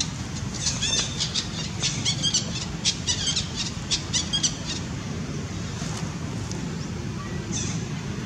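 A rapid series of short, high-pitched chirping calls lasting about four seconds, then a few fainter ones, over a steady low rumble.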